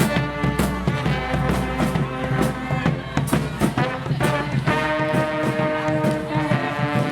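Brass band music with held brass chords over a steady drum beat.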